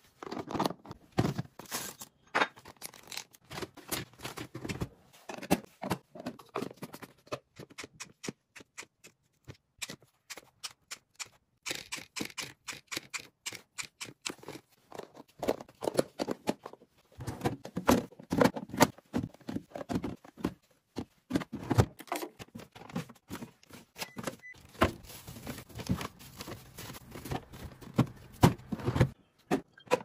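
Hands handling clear plastic food storage boxes and the food going into them: many light clicks, taps and knocks of eggs, plastic lids and containers being set down and moved.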